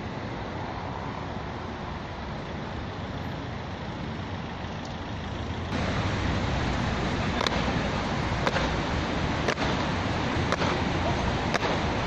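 Steady city traffic hum. About six seconds in it gets louder, and the boots of Bulgarian honour guards marching in step strike the paving stones with sharp footfalls, about once a second.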